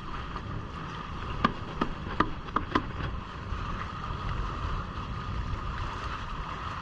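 Wind buffeting the microphone and water rushing past the hulls of a Hobie Cat catamaran under sail in choppy water. Between about one and a half and three seconds in there is a quick run of five sharp knocks.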